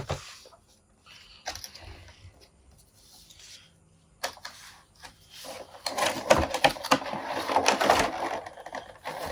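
Plastic toy packaging being handled as an action figure is worked out of its box: a sharp click at the start, scattered clicks and crinkles, then dense crackling and rattling over the last few seconds.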